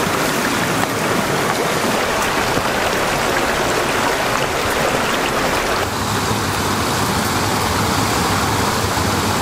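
Small rocky river rushing steadily over stones and little cascades.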